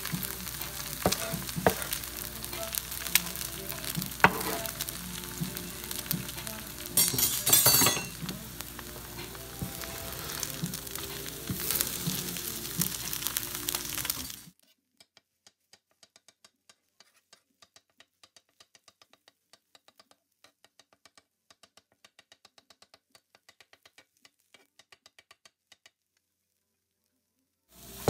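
Egg frying on a hot oiled flat-top griddle: steady sizzling, with a spatula clicking and scraping on the metal as it breaks up and chops the egg, and a louder burst about seven seconds in. About halfway through the sound cuts out suddenly to near silence with only faint rapid ticks, and comes back just before the end.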